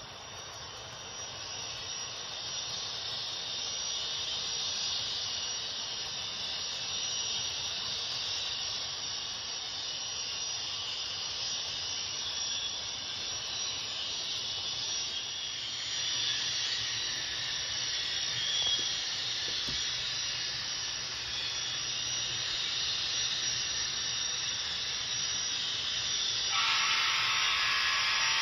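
Onboard sound of a ScaleTrains Union Pacific 'Big Blow' gas-turbine locomotive model playing a steady turbine hiss, like a jet engine running, that gets louder over the first few seconds. A buzzing, pitched tone joins near the end.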